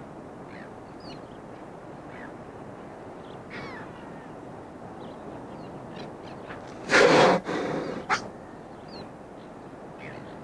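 Stranded pilot whale blowing hard through its blowhole about seven seconds in: one loud rushing breath, a shorter second one and a sharp click, the laboured breathing of a whale struggling for breath out of the water. Faint short high chirps come and go over steady background noise.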